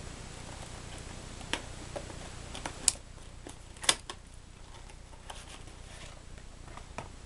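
Yu-Gi-Oh starter deck packaging being handled and opened: scattered clicks and crinkles of cardboard and plastic, the loudest a little under 3 s and about 4 s in, over a steady low hum.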